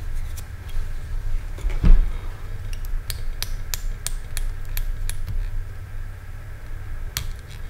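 Small sharp clicks and ticks of hands and a thin metal tool working a fly clamped in a fly-tying vise, with one dull thump about two seconds in. The clicks come thickest in the middle and again near the end.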